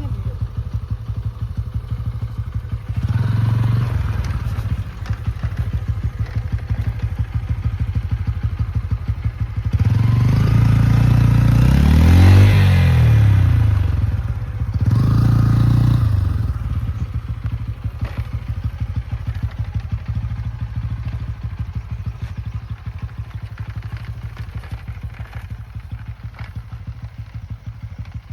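Motorcycle engine running while riding, its exhaust pulsing steadily. The throttle opens for a surge about 3 seconds in, a longer one with the pitch rising and falling from about 10 to 14 seconds in, and another near 16 seconds; after that the engine settles back to a steadier, quieter run.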